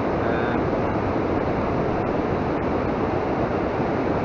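A steady rushing noise that does not change, with a brief faint high tone about half a second in.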